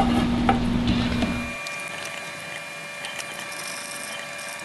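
Steady low workshop hum with a few light clicks as the metal controller is handled and set against its mounting plate. About a second and a half in, the hum cuts off abruptly to a quieter room tone with a faint steady whine.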